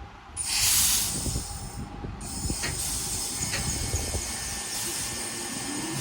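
Class 323 electric multiple unit departing: a loud burst of air hiss about half a second in, then the steady sound of the train moving off with a few sharp clicks from the wheels, and a rising motor whine near the end.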